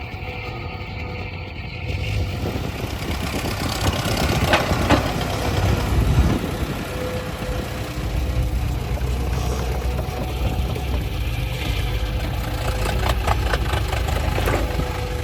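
Heavy vehicle's engine running steadily, with bursts of clattering a few seconds in and again near the end.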